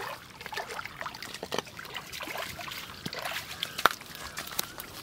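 Water splashing and dripping as a hooked eel thrashes at the surface and is hauled out on a hand line, with scattered short clicks and knocks; one sharper knock comes a little under four seconds in.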